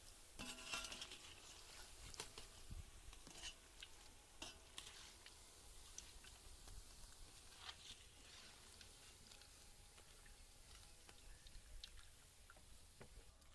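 Faint crackle of hot frying oil in a large wok, with oil dripping off a perforated skimmer of freshly fried pakoras and scattered light ticks.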